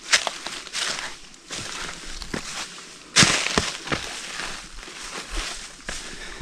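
Irregular footsteps crunching over the forest floor while hikers scramble over rocks, the loudest crunch a little past three seconds in.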